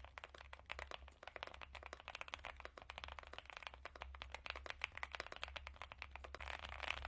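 Fast typing on a Leobog Hi75 mechanical keyboard with Gateron EF Curry linear switches: a dense, continuous stream of keystroke clacks that grows a little denser near the end.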